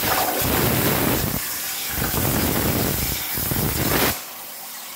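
CNC plasma cutter's torch cutting steel plate: a loud, steady hiss from the plasma arc and its air jet, which starts suddenly and cuts off about four seconds in as the arc goes out.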